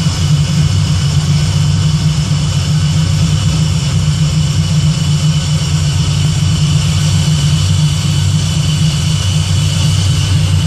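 Terminator 4.6-litre DOHC V8 in a Fox-body Mustang idling steadily, warming up while its cooling system is burped of trapped air.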